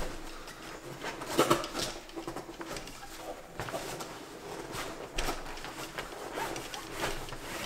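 Zippers on a Slinger Bag ball-machine bag being pulled open, with scattered scrapes and knocks as the bag's pockets and contents are handled.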